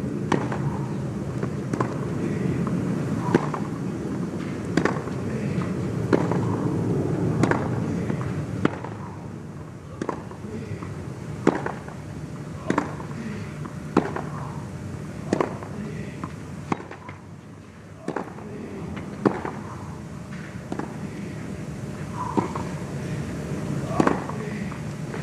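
Tennis racquets striking the ball back and forth in a long baseline rally on clay: some eighteen sharp pops, about one every second and a half.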